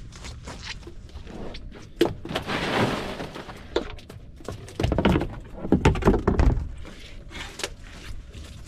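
Several hard knocks and thuds, with two bursts of rattling, scraping noise: a first about two seconds in, and a louder one around five to six seconds in.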